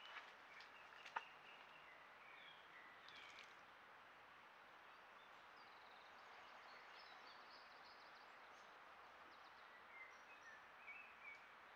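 Faint woodland ambience: scattered short bird chirps over a steady faint hiss, with one sharp click about a second in.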